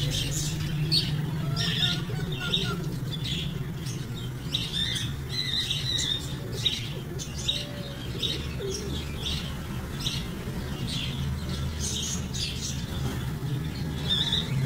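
Small caged parrots chirping and squawking in many quick, high-pitched calls, over a steady low hum.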